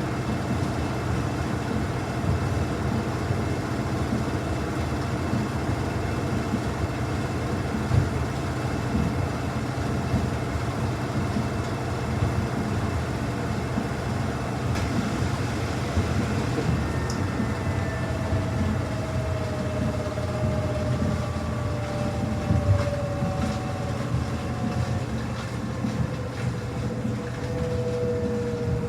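Samsung washing machine on its spin cycle, drum spinning fast with a steady rumble and hum. From about two-thirds through, the motor's whine falls slowly in pitch as the drum begins to slow down.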